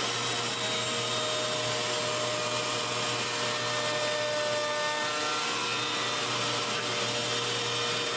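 Table saw running steadily while a wooden board is pushed through the blade: a continuous machine whirr with no break or change in level.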